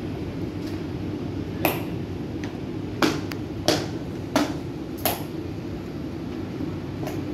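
Hard-soled shoes striking a tiled floor in marching steps: about five sharp knocks evenly spaced, over a steady hum of room noise.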